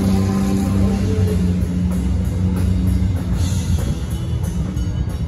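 Rock music with a drum kit: held low notes for about the first three seconds, then mostly drums.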